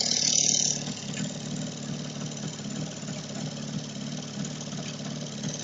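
Jawa 350 type 638 two-stroke twin-cylinder motorcycle engine running at idle, a little louder in the first second, then steady. The owner is showing it for a knock in the engine.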